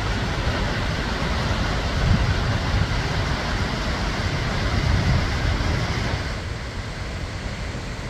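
Skógafoss waterfall's steady rush of falling water, with a deep, uneven rumble underneath. It grows a little quieter and duller about six seconds in.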